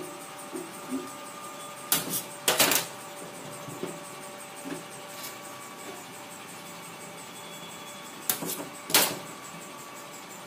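Soap extruding machine running with a steady hum. Loud sharp knocks come in two pairs, about two seconds in and again about eight seconds in.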